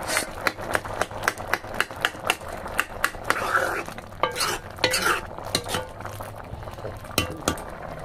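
Steel ladle stirring chickpea curry in an iron kadhai, its edge knocking and scraping against the pan in a quick run of clinks, about two or three a second.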